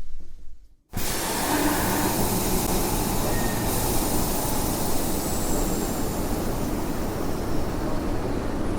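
Train running noise: a steady rumble and hiss of a moving train as heard riding in the carriage, from a sound-effect recording. It starts suddenly about a second in, after a sound that fades to a brief silence.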